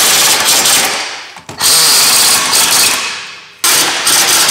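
Impact wrench hammering suspension and subframe bolts up tight, in three bursts about two seconds apart, each starting abruptly and tailing off.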